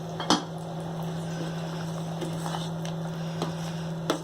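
Pot of sambar boiling on the stove under a steady low hum, with a spoon knocking against the pot twice, shortly after the start and near the end.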